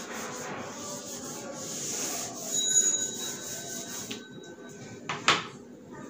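A whiteboard eraser rubbing across a marker board, wiping writing off in steady strokes. A single short knock comes about five seconds in.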